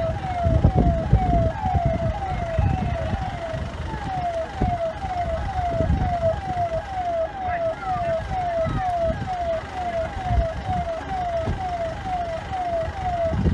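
Vehicle electronic siren sounding a fast yelp: a falling tone repeating about three times a second, with a brief break about four seconds in, cutting off near the end. A low rumble with knocks runs beneath it.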